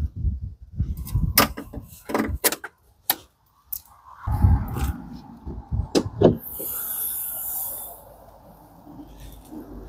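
Cable ties on a car's front bumper corner being snipped off with cutters: several sharp clicks in the first three seconds. Then knocks and rustling as the bumper and bonnet are handled.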